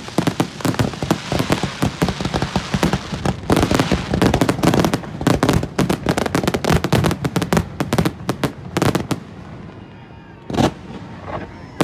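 Aerial fireworks display: a rapid, dense barrage of shell bursts and crackling. It thins out about nine seconds in, leaving one loud bang near the end.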